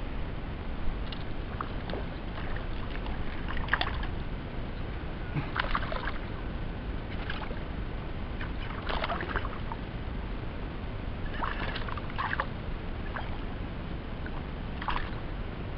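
Water splashing and sloshing against the side of a small fishing boat in short irregular bursts every second or two, over a steady low rumble.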